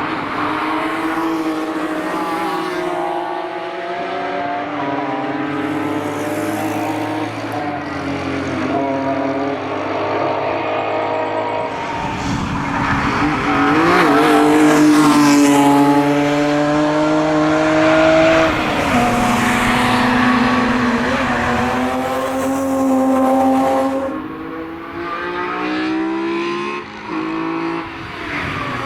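BMW E46 M3 track cars passing one after another at racing speed, their high-revving engines climbing and dropping in pitch through the gears. The loudest pass comes about halfway through.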